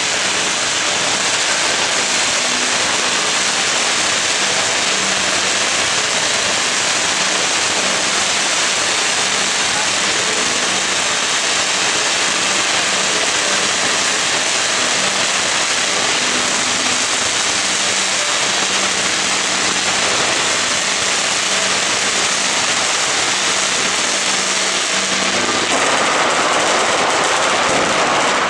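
Fireworks on the Scoppio del Carro cart going off in a dense, continuous crackle of firecrackers. The sound brightens and grows a little louder a couple of seconds before the end.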